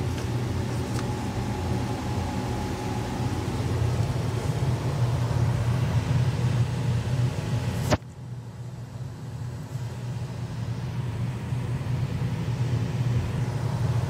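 Steady low mechanical rumble and hum of background machinery. It cuts off with a click about eight seconds in, leaving a quieter steady hiss.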